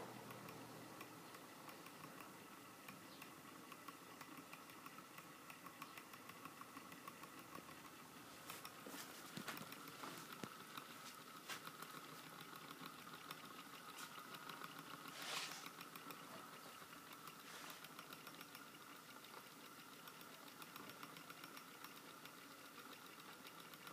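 A pair of small model Stirling engines running, a faint, fast mechanical ticking from their moving linkages and flywheels with a thin steady whine under it. A brief rush of noise about fifteen seconds in.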